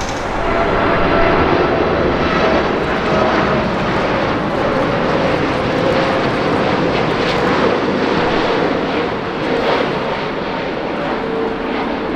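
Jet airliner engines passing close by: a loud, steady rush of engine noise with faint whining tones that slowly drop in pitch.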